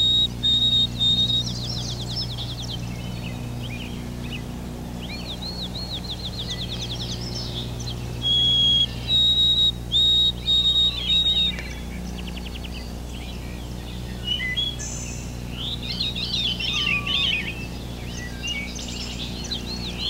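A songbird singing: a song of clear whistled notes followed by a rapid trill, given twice. More varied, busier bird song comes in during the last few seconds, all over a steady low hum.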